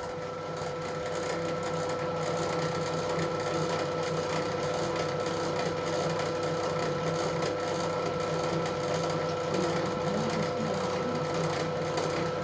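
Belt-driven grinding mill running steadily as it grinds wet pastel pigment paste: an even mechanical hum with a constant whine over it.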